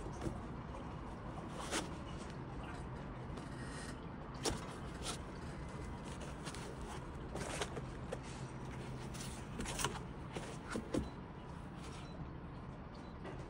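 Unpacking noises: a foam parts tray being lifted and handled, with scattered light clicks and taps as fingers touch the small metal engine parts in it, over a steady low background hum.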